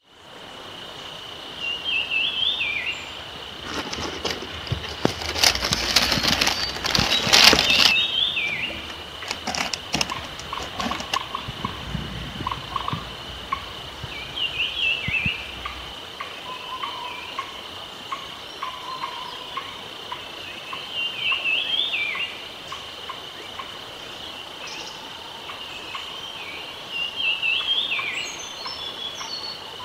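Short warbling bird calls, repeated every several seconds over a steady high-pitched whine. A burst of rustling and clicking comes about four to eight seconds in.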